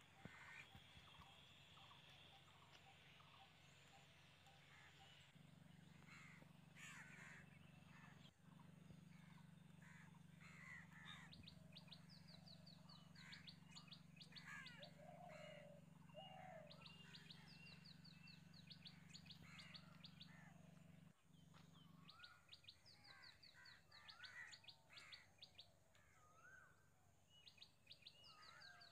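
Faint outdoor birdsong: several birds chirping, with short runs of rapid high repeated notes recurring every few seconds. A low steady hum sits underneath from about five seconds in until about twenty-two seconds.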